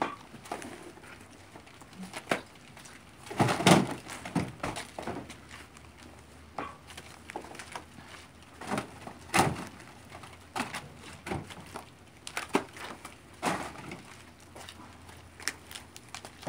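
Cardboard cases of cat food thudding and knocking as they are lifted off a wooden pallet and tossed into a pickup truck's bed: an irregular series of knocks, some much louder than others.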